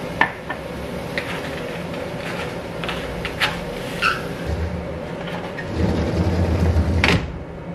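Household handling noises: scattered clicks and knocks over a steady hum, then a low rumble lasting over a second that ends in a sharp clunk near the end.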